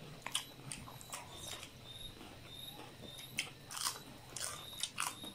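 Close-miked eating: chewing and crunching on food, with short wet mouth smacks and clicks at irregular intervals, loudest a little past halfway and again near the end.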